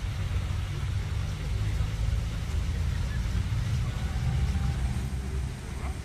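Outdoor city-park ambience: a steady, choppy low rumble with a faint even hiss above it.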